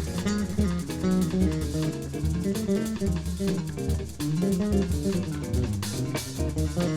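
Live instrumental band music: an electric bass plays a prominent moving melodic line, with guitar and a drum kit accompanying.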